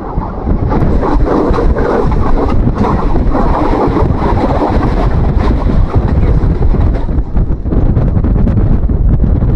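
Wind buffeting the microphone through an open window of a moving vehicle, over a steady low rumble. The wind noise is strongest from about one to five seconds in.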